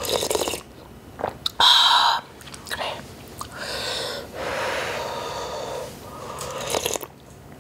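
A person slurping hot ramyeon broth from a spoon: a few short slurps and a longer, drawn-out one in the middle.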